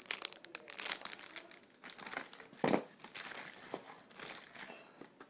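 Plastic packaging crinkling and rustling as it is handled, in irregular crackles, with one sharper knock about halfway through.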